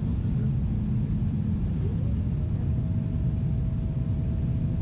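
Steady low rumble of an airliner cabin in flight. A steady hum drops out about a second and a half in. Just after, a higher tone glides up and then holds.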